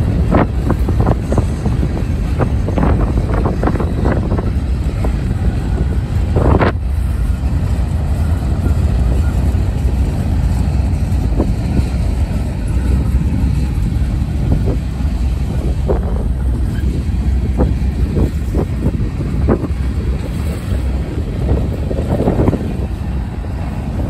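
Freight train of boxcars rolling past at close range: a steady low rumble of steel wheels on rail, broken by scattered clicks and clanks, the strongest about six and a half seconds in. Wind buffets the microphone.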